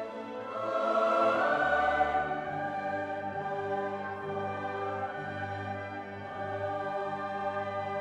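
Background music: sustained choir-like voices over orchestral chords, swelling about a second in.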